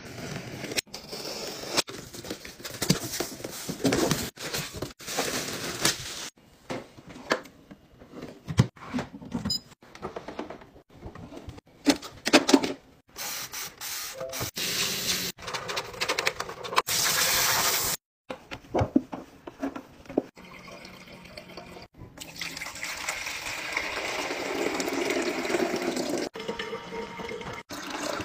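A string of short household cleaning sounds cut one after another, with running and pouring water among them.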